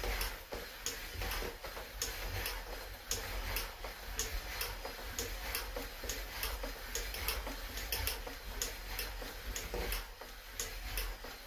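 Even run of sharp clicks, about three a second, while the freed-up Kohler CH18 V-twin is being turned over by hand, with a low hum underneath.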